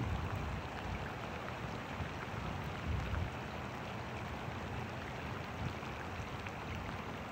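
Light rain falling on a pond's surface and the bank: a steady hiss of rain with scattered faint drop ticks, under a low rumble.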